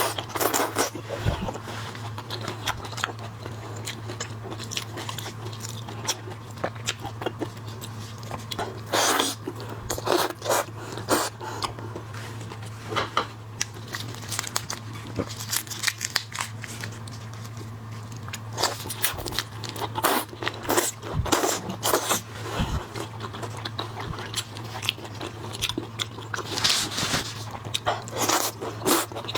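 Close-up eating of shell-on shrimp and crab: irregular crunching, cracking and chewing of shells and meat, with a steady low hum underneath.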